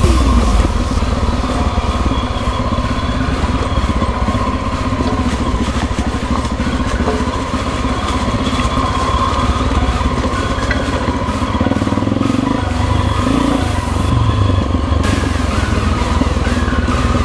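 Honda XR 250 Tornado's single-cylinder four-stroke engine running steadily as the motorcycle rides a dirt trail.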